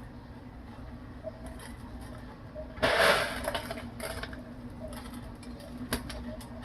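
LECA expanded-clay pebbles rattling as they are moved into a pot: one loud clattering rush about three seconds in, then a few light clicks.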